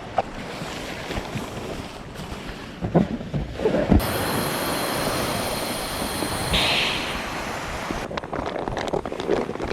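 Wind buffeting the microphone over sea water, with a few soft knocks. In the middle a steady rush with a faint high whine starts and stops abruptly and lasts about four seconds.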